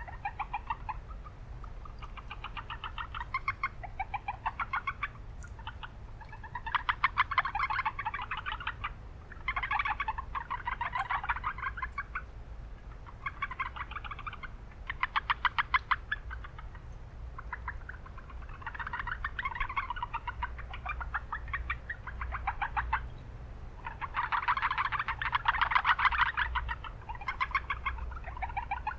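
Japanese brown frogs (Rana japonica) calling in a chorus: repeated runs of rapid, evenly spaced notes, one to two seconds each, overlapping from several frogs. A steady low rumble of city noise runs underneath.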